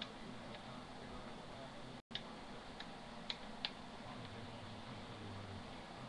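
Steady low room hum and hiss with a few light, irregularly spaced clicks, clustered a little after the sound cuts out for a moment about two seconds in.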